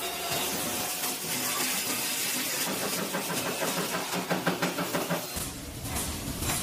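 Automatic CNC steel bending machine (press brake) running: a steady mechanical hiss with a quick run of clicks about three seconds in. The machine noise changes abruptly near the end.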